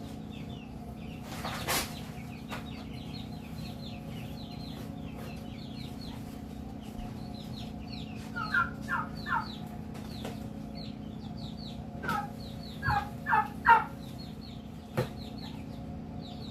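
Chickens clucking: three short clucks about eight to nine seconds in and four more around twelve to fourteen seconds, the last one the loudest. Faint high chirps run throughout over a steady low hum, and there is one brief noise about two seconds in.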